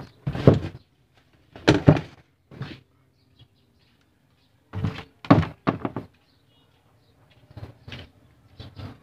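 Knocks and thuds from the opened LED TV's plastic housing and parts being handled. There are loud ones about half a second in, just before two seconds and a little past five seconds, with smaller clicks between them and faint clicks near the end.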